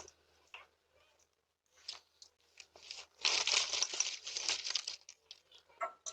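Crinkling, rustling plastic of wrapped candy being grabbed from a bowl, heard through a doorbell camera's microphone; faint at first, loudest for about two seconds midway.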